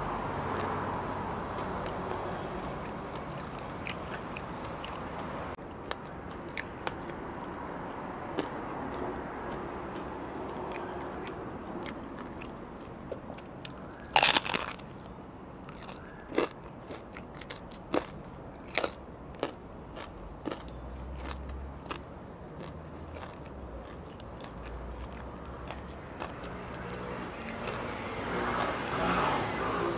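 Deep-fried crispy pork knuckle crunching as it is bitten and chewed. There is one loud crunch about halfway through, then a run of short, sharp crackly crunches.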